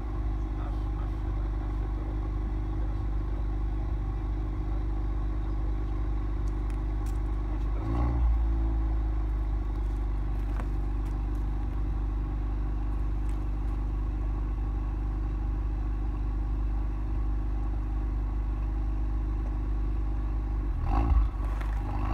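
Ford Focus RS Mk3's turbocharged 2.3-litre four-cylinder idling steadily through its twin exhaust tips. About eight seconds in it rises briefly in a short rev and falls back, and near the end there is another short louder moment.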